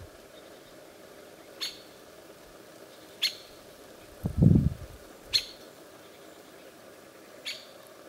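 White-winged woodpecker giving four sharp single call notes, spaced about two seconds apart. A brief low muffled thump midway is the loudest sound.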